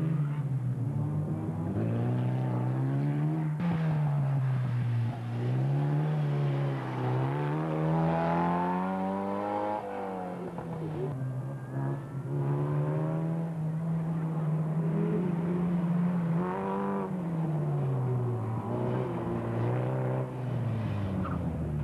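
Formula Ford single-seater racing car engines running hard through a slalom, one car after another. The engine note rises and falls over and over as the drivers accelerate, lift and change gear, with a steadier stretch about halfway through.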